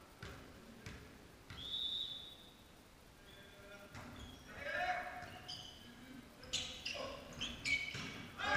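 Volleyball rally in a sports hall: a short high whistle about a second and a half in, then ball strikes, sneakers squeaking on the wooden floor and players' shouts, echoing in the hall, busiest near the end.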